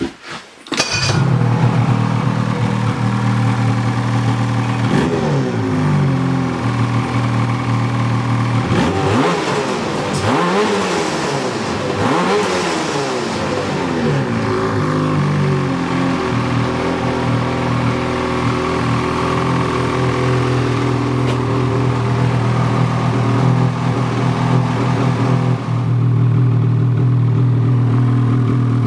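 Ski-Doo 800 E-TEC two-stroke twin snowmobile engine, fitted with a trail can exhaust, starts about a second in and settles into an idle. It is revved up and down briefly near five seconds and several times between about nine and fourteen seconds, then idles steadily.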